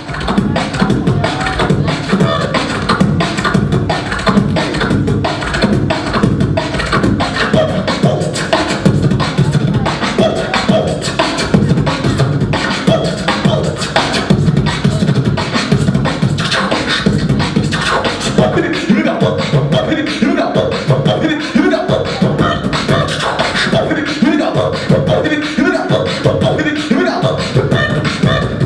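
Solo human beatboxing into a handheld microphone: a continuous fast rhythm of vocal drum sounds, loud and steady throughout.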